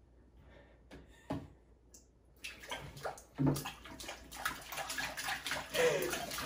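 Hands splashing and swishing in a bowl of water, wetting them as the first step of handwashing. A quick run of small splashes starts about two and a half seconds in, after a quiet start with a single click.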